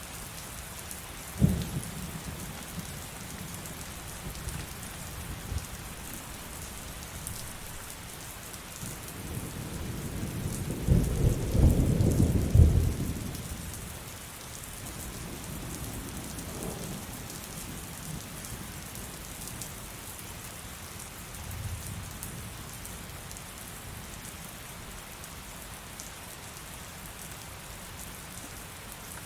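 Steady heavy rain with thunder: a sudden clap about a second in, then a long low rumble that builds, peaks around the middle and fades, with fainter rumbles after.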